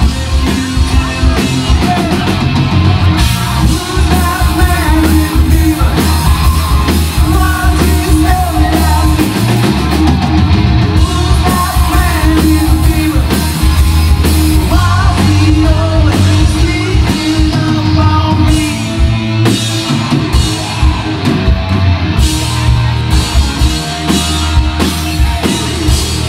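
A live hard rock band plays loudly and without a break: distorted electric guitars, bass guitar and a full drum kit.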